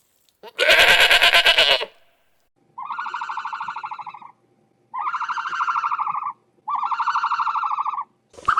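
An animal calling: one loud, harsh call about half a second in, then three long, even, buzzy calls of about a second and a half each, evenly spaced.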